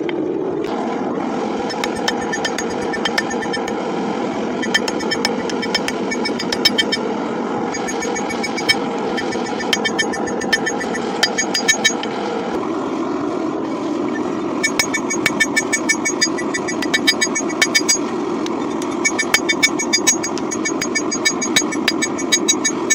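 Hand hammer striking a steel pipe wrench on an anvil in runs of sharp metallic blows, some ringing, with the strikes thickest in the second half. Under them runs a steady roar from the propane forge burner.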